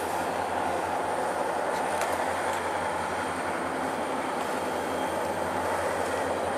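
Steady rumble of a moving train heard from on board.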